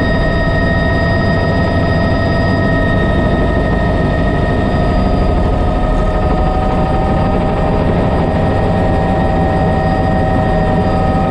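Bell 206 JetRanger helicopter in flight, heard inside the cockpit: steady turbine whine over the dense rotor and transmission noise. One of the whine tones edges up slightly in pitch about halfway through.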